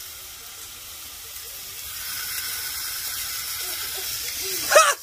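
A steady hiss that grows louder about two seconds in, with a short loud voice exclamation near the end.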